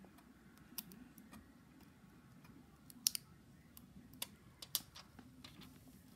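Scattered light clicks and crackles of a thin clear plastic protective film being picked at with a fingernail and peeled off an Ender 3 3D printer's LCD screen, the sharpest snap about three seconds in.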